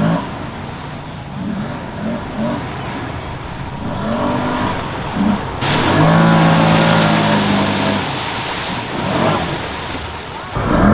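Can-Am Outlander ATV engine revving up and down under load as it churns through deep mud ruts, with one longer, louder held rev about halfway through.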